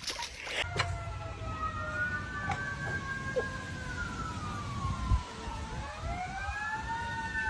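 Siren wailing: several overlapping tones rise and fall slowly over a low rumble, and a new rising wail begins near the end.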